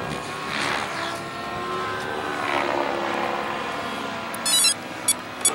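An Align T-Rex 700 RC helicopter's rotor and motor running with a steady whine, swelling and fading as it moves. Near the end a cluster of short high beeps starts, followed by a regular high ticking.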